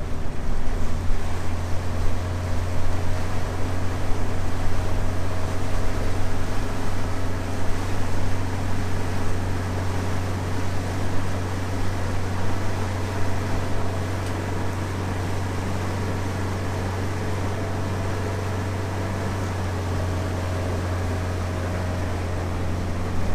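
Small fishing boat's motor running steadily under way, a constant low hum, with wind and water noise over it that is gustier in the first half and settles in the second.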